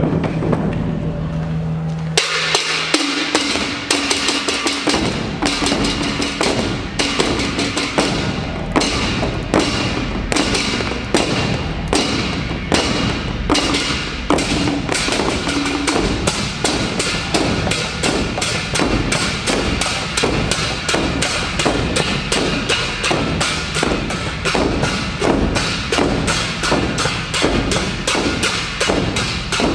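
Thai stage percussion music. Low held notes give way, about two seconds in, to a steady beat of sharp drum and wooden strikes, a few a second, that grows denser in the second half.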